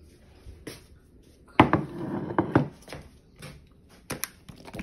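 A woven palm tortilla basket being set down on a table: a knock about a second and a half in, a brief rattling scrape, then a few light clicks near the end.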